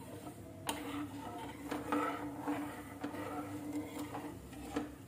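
A metal ladle stirring undissolved sugar and water in a non-stick kadhai, giving irregular gritty scrapes and light taps against the pan as the sugar syrup is being melted.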